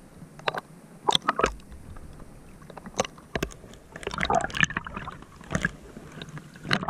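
Sea water sloshing and splashing around a camera held at the waterline, in irregular splashes, with muffled gurgling as it dips under the surface around the middle.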